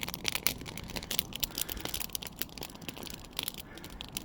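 Campfire crackling and popping: many irregular sharp clicks and snaps from burning wood.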